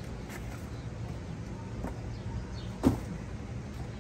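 Cardboard box of a model train passenger car being handled, with one sharp knock about three seconds in over a steady low hum.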